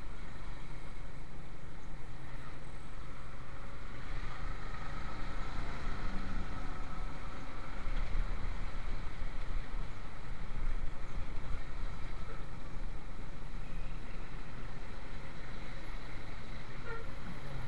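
Motorcycle running on the move in heavy road traffic: a steady, unbroken rumble of engine and road noise.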